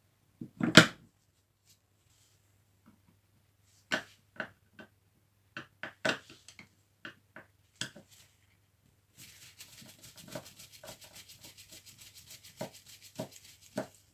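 Hand work on a power tool at the bench: one loud knock, then a run of separate clicks and knocks, then a rapid, even ticking for the last five seconds with a few heavier clicks mixed in.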